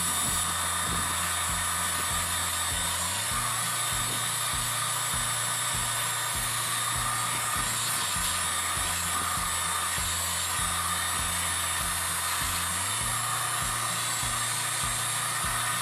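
Heat gun blowing steadily on its highest setting, a constant hiss of hot air, under background music with a steady beat of about two kicks a second.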